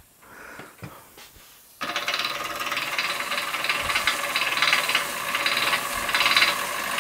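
Mamod ME1 toy marine steam engine starting up about two seconds in and then running fast, a steady rapid mechanical chatter with a hiss of steam. It is running on low steam pressure because the safety valve leaks.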